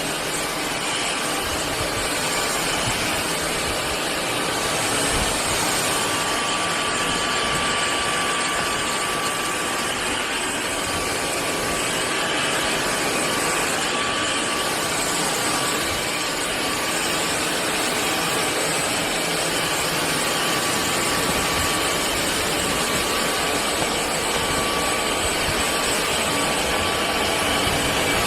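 Cordless stick vacuum motor running steadily: an even rushing of air with a thin, steady whine.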